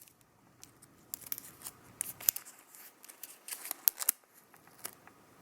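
Protective plastic film being peeled off an Apple Watch's modern buckle: scattered light crackles and small clicks.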